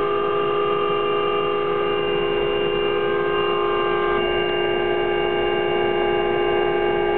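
Turbine helicopter's engine and transmission whine, steady and loud inside the cabin as it runs on the ground during startup, with a small change in its tones about four seconds in.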